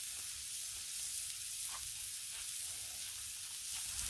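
A ball of ground beef sizzling on a hot, oiled Blackstone flat-top griddle: a steady hiss with a few faint crackles.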